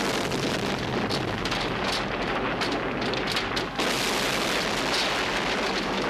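Steady rushing hiss of steam venting from industrial pipework, with a low rumble underneath. About two-thirds of the way through the hiss suddenly grows brighter and harsher.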